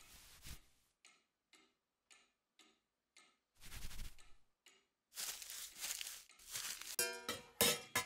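Cartoon sound effects of a cloth wiping and polishing furniture and a picture frame. It starts as short rubbing strokes about twice a second, then turns to denser rubbing with a squeak near the end, over light background music.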